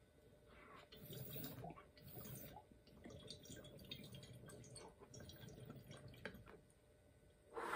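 Water bubbling faintly in a glass dab rig as a hit is drawn through it: a soft run of small pops and gurgles that starts about half a second in and stops shortly before the end.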